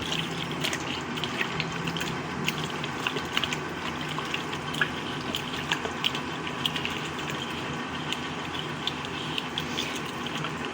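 Hands squishing and mixing chicken pieces in a thick yogurt and spice marinade in a bowl. Irregular wet squelches and short clicks come one after another over a steady background hiss.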